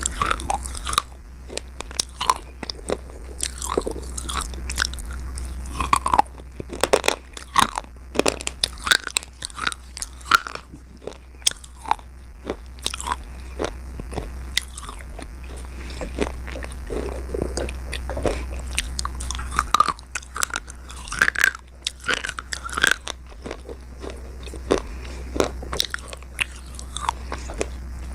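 Close-up crunching as slate is bitten and chewed between the teeth: a quick, irregular run of sharp, brittle crunches, over a low steady hum.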